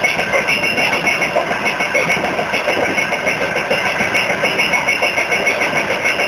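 Moving freight train: the wheels clatter on the rails in a rapid, steady rattle.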